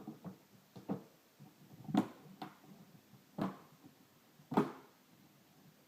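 Plastic rear cover of an LCD monitor being fitted and pressed shut: a series of sharp clicks and knocks, the loudest about two, three and a half and four and a half seconds in.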